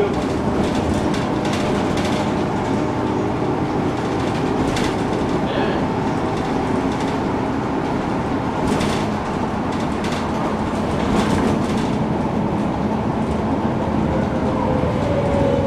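2007 MAN NG 313 articulated city bus under way: steady engine and drive noise with short rattles and knocks now and then.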